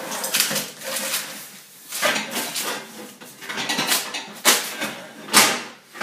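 Handling noise as a mounting frame is pushed over the front of a fridge: irregular rustling and clattering, with sharper knocks about two, four and a half and five and a half seconds in.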